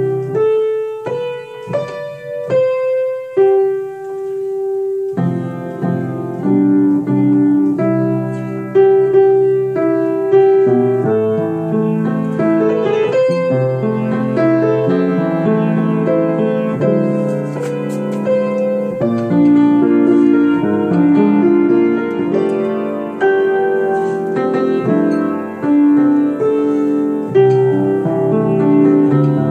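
Grand piano played solo, a gospel song arrangement: a few separate chords and held notes at first, then fuller, flowing chords and runs from about five seconds in.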